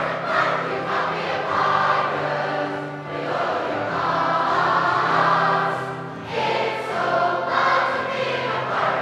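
Large mixed choir of men's and women's voices singing a sea shanty in full harmony, with short breaks between phrases about three and six seconds in.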